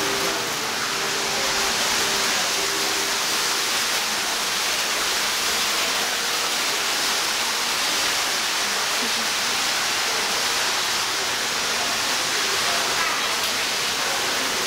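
Steady rushing hiss of background noise, even in level, with faint voices in the first few seconds.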